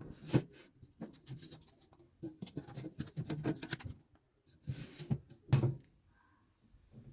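Irregular knocks, clicks and rustling of objects being handled in a small room, with a few sharper knocks in between.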